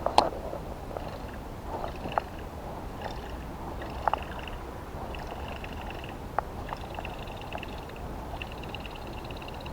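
Frogs calling in pulsed, repeating trills from about three seconds in, over steady outdoor background, with a sharp knock just after the start and a few fainter clicks.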